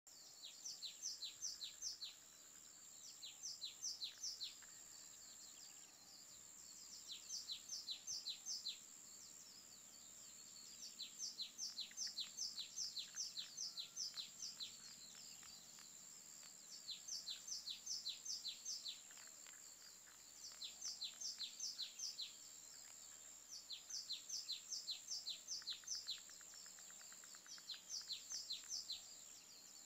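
Bird song in repeated bursts of quick, downward-sweeping chirps, about six a second. Each burst lasts one to two seconds, with short pauses between. A steady high-pitched hiss runs underneath.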